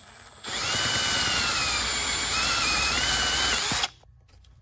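Electric drill with a twist bit drilling out a rivet in a plastic bumper piece. The motor's whine starts about half a second in, dips a little in pitch as the bit bites, and stops suddenly after about three seconds.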